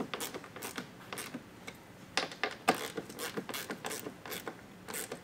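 Irregular clicking from a 90-degree screwdriver with a Phillips bit as the mud flap screws are tightened down.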